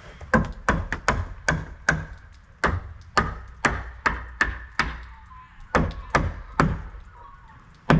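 Hammer blows on timber framing, struck in a quick steady run of about two to three a second, pausing briefly about five seconds in, then a few more blows before stopping near the end.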